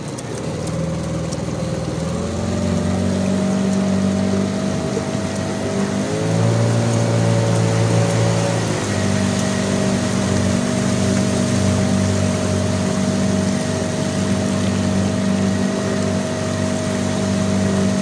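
Outboard motor of a small boat running steadily under way. Its note shifts for a few seconds about six seconds in, then settles back to the same steady pitch.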